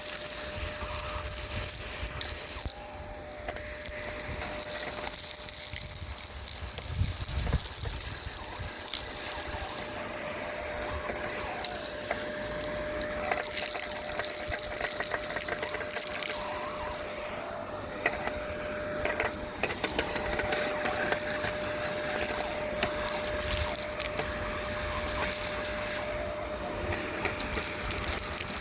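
Miele Complete C2 Tango EcoLine canister vacuum running, its floor head sucking grit and debris off pavement: a steady motor hum under constant irregular crackling and clicking as debris rattles up the hose.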